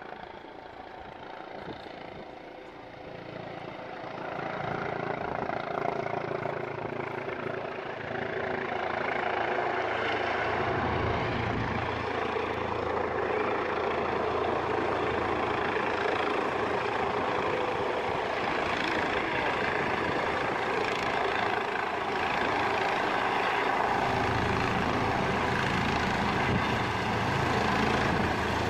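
Rescue helicopter approaching to land, its rotor and engine noise growing louder over the first several seconds and then holding steady and loud as it closes in.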